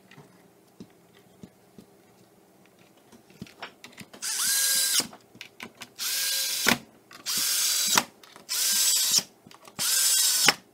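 Craftsman cordless drill/driver driving wood screws into the sled to fasten the braces. After a few light clicks of screws being set down, the motor runs in five short bursts of about a second each, starting about four seconds in, and each run slows at its end as the screw seats.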